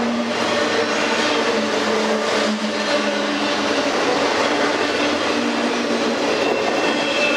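Autorack cars of a freight train rolling past, steel wheels on the rails making a steady rolling noise, with faint steady squealing tones over it.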